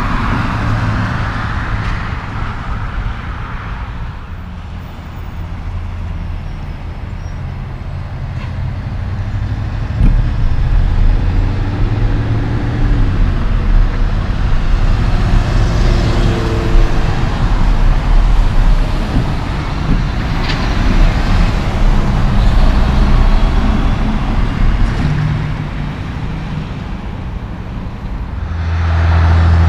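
Diesel tractor-trailers passing on a highway, with engine and tyre noise swelling and fading as each goes by. The loudest pass begins about ten seconds in and lasts more than ten seconds, and another loud, steady engine hum rises sharply near the end.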